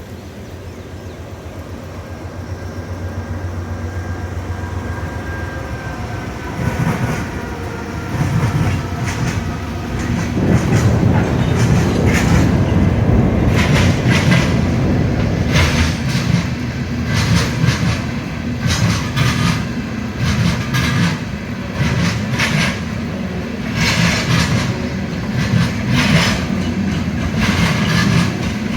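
Norfolk Southern freight train of steel-coil cars passing: the diesel locomotives' low engine hum builds over the first several seconds, then the loaded cars roll by with a loud rumble and repeated clacking of wheels over rail joints.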